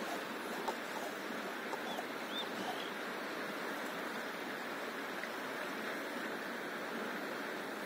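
Steady splash and trickle of small sea ripples lapping against a paddleboard close by, with a few small clicks and faint high chirps about two seconds in.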